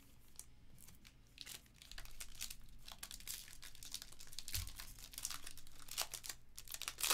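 Shiny foil trading-card pack wrapper being torn open and crinkled by hand: quiet at first, then a run of sharp crackles from about a second and a half in, loudest just before the end.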